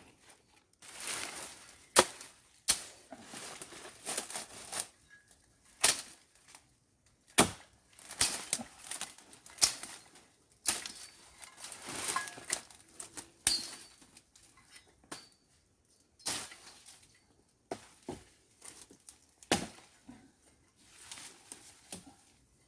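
Machete hacking through branches and brush: irregular sharp chops a second or more apart, with swishing and rustling of leaves and twigs between them.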